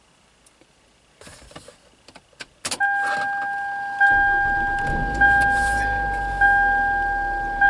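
A few clicks and a light rattle, then a car's warning chime starts about two and a half seconds in. It is a single pitched ding that repeats about once every 1.2 seconds, each one fading before the next. A low rumble runs under it from about four seconds in.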